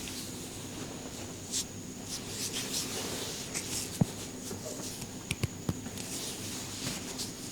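Hands rubbing and working over hair and skin during a head massage, in soft rustling swishes. A single sharp click about four seconds in, the loudest sound, and a quick run of smaller clicks a second later.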